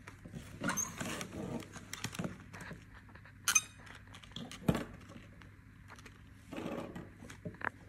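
Plastic pens being handled, tapping and clicking lightly against a tabletop and their cardboard box as they are set down and lifted out, with a couple of sharper clicks around the middle.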